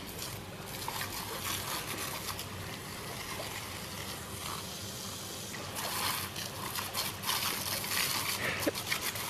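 Garden hose water jet spraying and splattering as a dog bites at it. The splashing grows louder and choppier about six seconds in.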